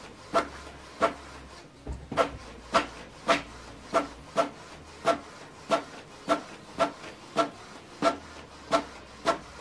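Canon PIXMA TS7650i inkjet printer printing a page: a regular run of short mechanical passes, about one every 0.6 seconds, as the print-head carriage sweeps back and forth across the sheet, which feeds out into the output tray.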